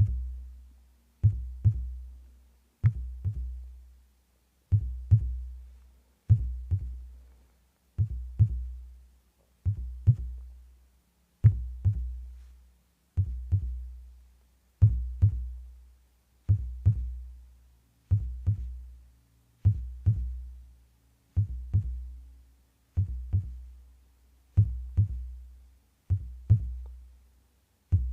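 Heartbeat: slow, regular low double thumps, lub-dub, about 36 beats a minute, each beat fading out before the next.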